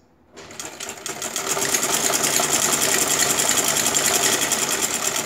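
Black straight-stitch sewing machine running a seam along a narrow folded trouser hem. It picks up speed over the first second into a fast, even run of needle strokes, then stops near the end.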